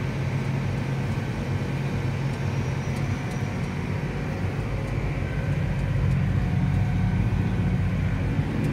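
John Deere 8285R tractor's diesel engine running steadily as heard inside the cab while driving, a low hum that grows somewhat louder about six seconds in.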